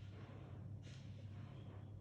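Quiet room tone: a steady low hum under a faint hiss, with a faint brief rush of noise near the middle.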